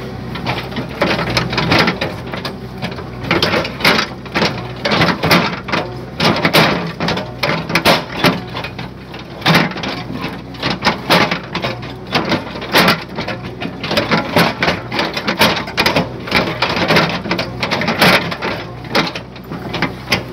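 JCB backhoe's diesel engine running steadily, under a dense, irregular crackle of clicks and knocks.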